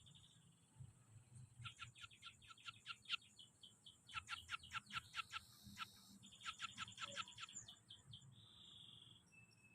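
Scaly-breasted munia (peking) singing a learned weaver-style (manyar) song: three bursts of rapid, evenly spaced ticking notes, then a short buzzy note near the end.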